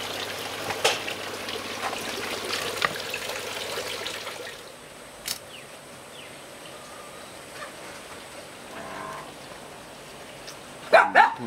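Water trickling and splashing in a fish pond, with a few sharp splashes, dropping away about four and a half seconds in. Near the end, a short loud call with a sliding pitch.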